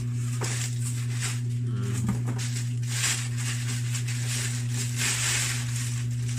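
Plastic bag and bubble wrap crinkling and rustling as they are pulled off a boxed amplifier, over a steady low hum.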